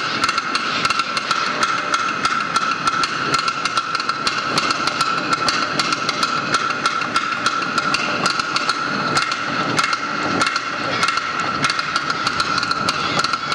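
Awa Odori hayashi music: a kane hand gong struck in a fast, even rhythm of about four clanging strikes a second, over a steady high ringing tone and the rest of the band.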